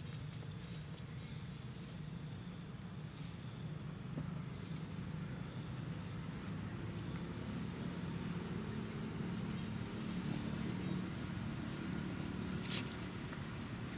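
Insects chirring steadily in two high-pitched bands, over a low, steady background rumble.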